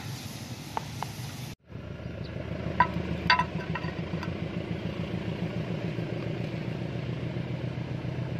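Diesel locomotive engine running with a steady low throb, with a couple of sharp clicks about three seconds in.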